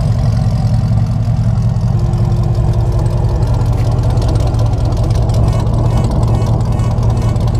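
Chevrolet Camaro SS's 6.2-litre V8 idling steadily, heard close to the exhaust tips, with a deep, even note.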